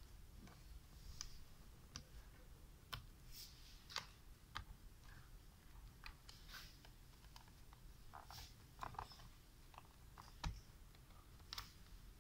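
Faint, irregular clicks and light scrapes of a small Phillips screwdriver working screws loose from a laptop's plastic bottom case, over quiet room tone.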